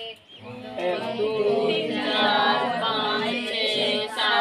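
Singing: a voice carrying a melody with long, wavering held notes.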